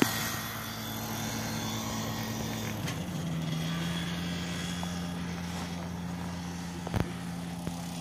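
Radio-controlled model airplane engine droning steadily in the air, its pitch stepping up about three seconds in as the throttle changes. A short knock near the end.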